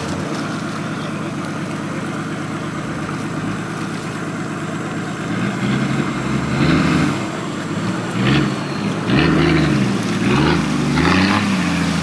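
Off-road 4x4's engine running steadily, then revved up and down over and over as it drives through deep muddy water, with water splashing around it.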